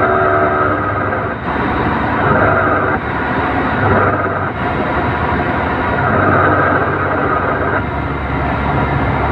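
Toyota Town Ace Noah driving, with a steady hum that comes and goes several times over the running noise. It appears whenever the throttle is released and disappears when it is pressed again, so it is heard only on lift-off.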